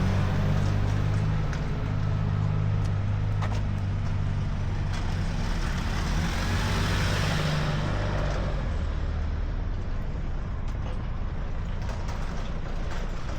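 Road traffic: a heavy vehicle's engine running with a steady low hum, and a rushing hiss that swells and fades about six to eight seconds in.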